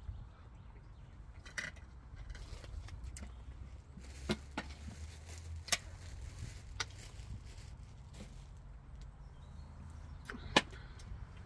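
Scattered light clicks and clinks of a fork against a plate and a drinking glass, with a sharper knock near the end as the glass is set down, over a faint low rumble.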